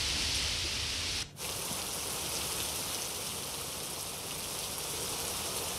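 Heavy rain falling, a steady hiss that dips briefly about a second in.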